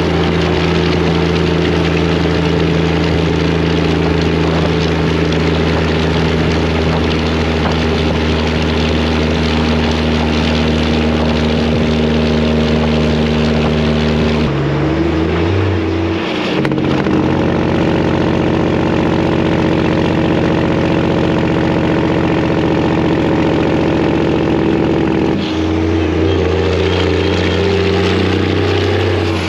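Freightliner truck's Detroit diesel engine running loud and steady. Its pitch changes about halfway through, then shifts back near the end.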